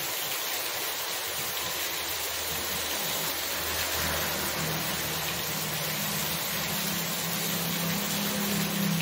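Heavy rain pouring steadily onto a wet street. Motor scooters ride through the downpour: a low engine hum comes up around the middle, and a second scooter's engine grows louder toward the end.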